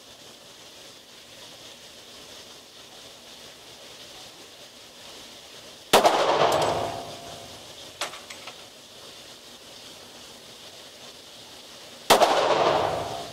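Two shots from a Glock 22 pistol in .40 S&W, about six seconds apart, each a sharp crack followed by about a second of ringing echo in the enclosed indoor range.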